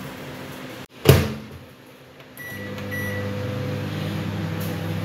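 Cookking microwave oven door shut with a thud about a second in, then two short beeps as the oven is started, and the steady hum of the oven running begins, heating a mug of water.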